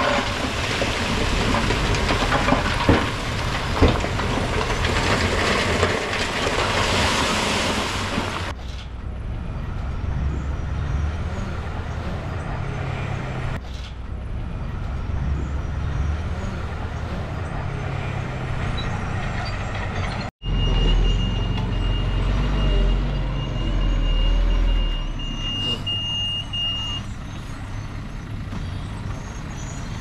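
Heavy diesel machinery working: dump truck and bulldozer engines running. A dense roar for the first eight seconds or so gives way abruptly to a lower rumble, and a steady high whine runs for several seconds after about twenty seconds.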